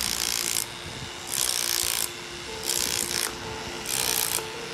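Rhythmic rasping scrapes on brickwork, four strokes about a second and a half apart, over a faint steady hum.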